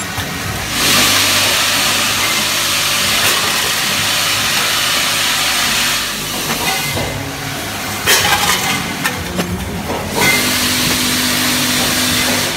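Automatic screw packing machine with ten vibratory feeders running: a steady low hum under long stretches of hissing, with a quick run of clicks and clinks about eight to ten seconds in.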